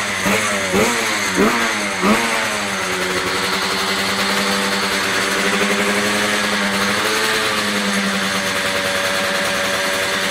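Librenti 500 two-stroke Grand Prix racing motorcycle engine revved in four quick throttle blips, each rising and dropping sharply. It then settles into a steady fast idle, with a slight lift in revs about seven seconds in.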